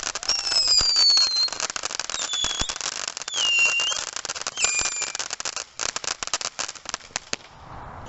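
Ground fountain firework spraying sparks: a dense crackling with four short whistles falling in pitch, a flare with noise, which cuts off abruptly near the end as the fountain goes out.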